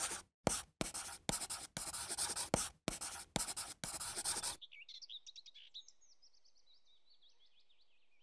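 Scratchy strokes of writing on paper, about seven separate strokes with short gaps between them, sounding as the handwritten logo draws itself. From a little past halfway, faint, quick, high-pitched bird chirps follow.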